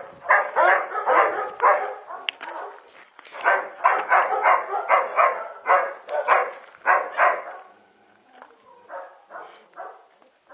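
Dog barking repeatedly in quick runs of a few barks a second, the barks growing fainter near the end.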